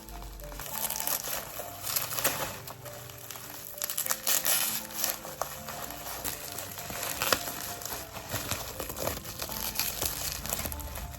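Packaging crinkling and rustling in irregular bursts as a mailed package is unwrapped by hand, over soft background music.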